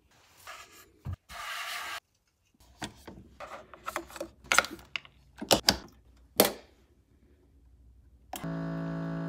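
Plastic clicks and knocks of a Keurig single-serve coffee maker being handled: the lid opened, a K-cup pod set into the holder and the lid snapped shut, with the loudest sharp clicks about five and a half to six and a half seconds in. Near the end a steady buzzing hum starts suddenly.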